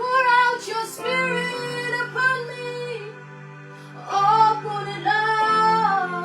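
A woman singing a slow gospel worship melody in two held phrases, over sustained keyboard chords.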